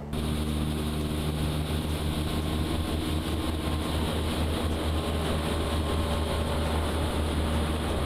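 Motorboat engine running steadily while the boat is under way, a constant low drone with a broad rushing noise over it.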